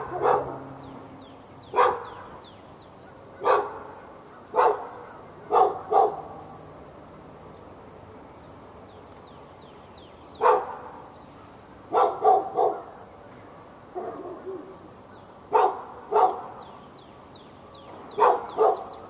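A dog barking: single sharp barks and quick pairs or triples at irregular intervals, with a pause of about four seconds midway.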